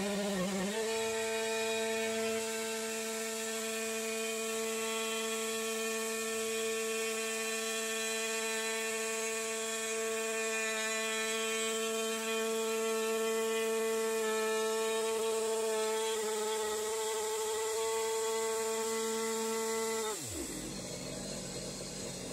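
Stihl two-stroke chainsaw on a milling jig ripping lengthwise through a cedar beam, its engine held at high, steady revs. About 20 seconds in the engine note falls away sharply.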